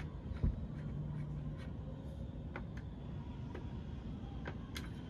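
Small hand work at an air conditioner's outdoor unit: scattered light ticks and taps at uneven intervals, with one dull thump about half a second in, over a low steady hum.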